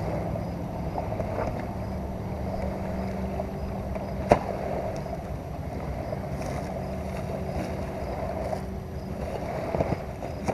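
A steady, distant engine hum with a low drone under outdoor noise, and a single sharp knock about four seconds in.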